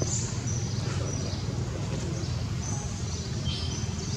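Birds chirping in short, high-pitched notes over a steady low outdoor rumble.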